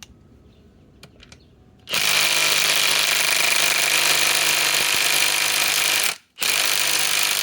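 Bosch GDS18V-330C cordless impact wrench hammering steadily as it drives a large lag screw into wood. It starts about two seconds in, stops briefly about six seconds in, then hammers on again.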